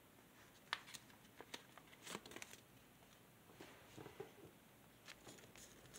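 Faint crinkling and soft crackles of origami paper being pinched and creased by hand, a few scattered short rustles against near silence.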